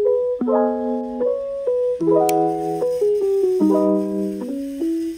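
Background music: a piano-like keyboard melody with notes changing about every half second over held lower notes.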